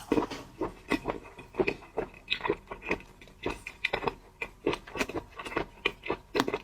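A person chewing and biting seafood close to the microphone: an irregular run of short chews and crunches, several a second.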